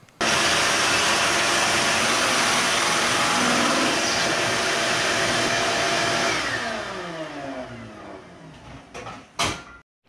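Shop vacuum running steadily, then switched off about six seconds in, its whine falling as the motor winds down over a few seconds. A short knock near the end.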